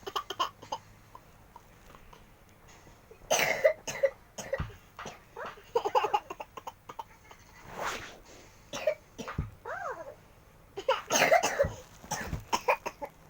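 Bouts of coughing, several coughs at a time, spread across the stretch, with the loudest a little after 3 s and around 11 s.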